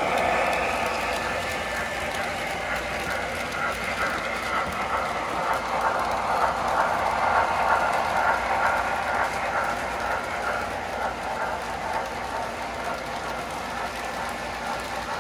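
O gauge model trains running past close by: the steady whir of the locomotives' motors and the wheels rolling on the metal track, growing louder for a few seconds around the middle as the cars pass nearest.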